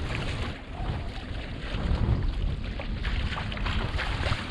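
Wind noise on the microphone and choppy waves splashing irregularly against the bow of a small wooden sailing kayak under sail.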